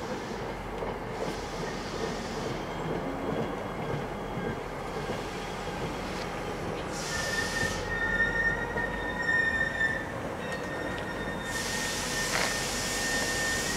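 NJ Transit commuter train rolling into a station and slowing to a stop, its running rumble joined about halfway through by a steady high-pitched brake squeal, with two bursts of hiss.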